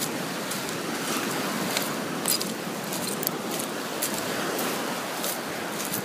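Small waves washing onto a beach: a steady rush of surf with scattered, irregular sharp clicks and crackles.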